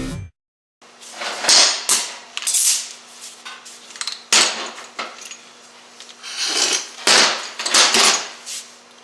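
Metal tools and steel transmission parts clinking and clattering against each other in a string of short bursts as a Honda automatic transmission is taken apart, with a faint steady hum underneath.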